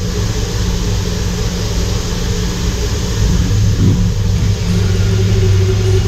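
Mazak HCR-5000 5-axis horizontal machining center running: a steady low hum with a hiss of coolant spray over it.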